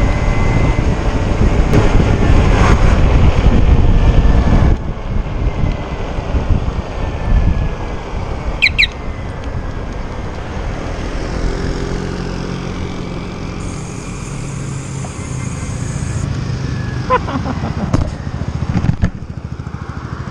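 Motorcycle riding noise: wind rushing over the microphone with the engine and tyres underneath. The wind noise drops off sharply about five seconds in as the bike slows, leaving a quieter, steady engine hum.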